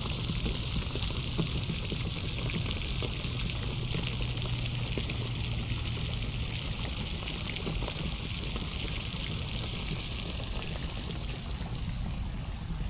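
Steady rain falling, a continuous hiss of water made up of many small drop ticks.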